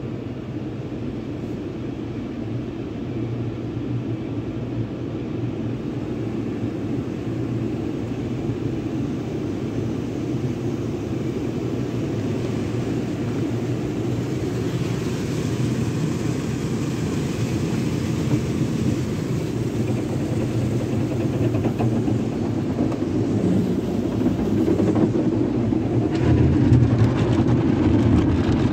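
Sonny's car wash tunnel heard from inside a vehicle's cab: a steady rumble of water spray and wash machinery as foam coats the windshield, slowly growing louder. Near the end, cloth wash brushes start slapping against the side window and the sound gets louder still.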